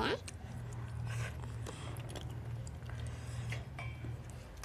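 Close-up mouth sounds of someone chewing food, with a few faint soft clicks, over a low steady hum.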